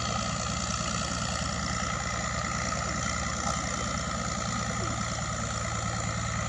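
Small boat's motor running steadily: an even engine hum with a fast, regular low pulse.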